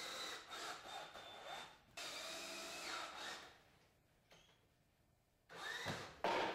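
Cordless drill driving a screw into a wooden block, in short runs with a quiet pause in the middle.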